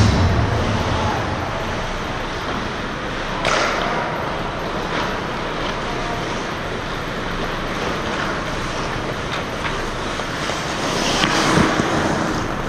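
Ice hockey in play: skate blades scraping the ice in a steady hiss, with a few sharp clacks of stick on puck, one about three and a half seconds in, another about five seconds in, and more near the end.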